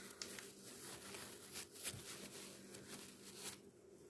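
Quiet room tone with a steady low electrical-sounding hum, broken by a few soft clicks and rustles, the loudest a little under two seconds in.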